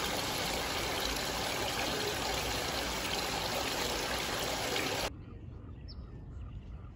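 Steady rush of running water that cuts off abruptly about five seconds in. Quieter outdoor ambience follows, with one short bird chirp.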